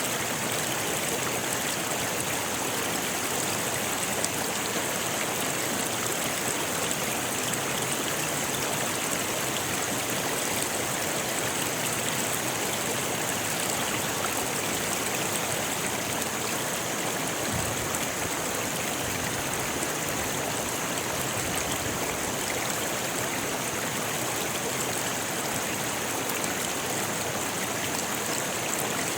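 Rocky river flowing: a steady, even rush of water over stones.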